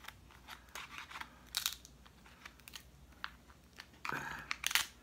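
Kitchen scissors snipping through a crab leg's hard shell: a scattered series of short crunching snaps, several strong ones towards the end.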